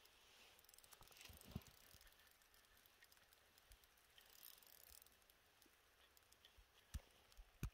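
Near silence, with faint ticking from an ice-fishing reel being cranked while a fish is played up through the hole, and a couple of soft thumps near the end.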